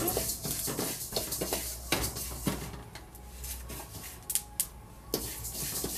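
Flaxseeds being dry-roasted in a metal kadhai: a metal spoon scrapes and clinks against the pan as the seeds are stirred, with the seeds crackling as they roast. Irregular clicks throughout, sparser in the middle.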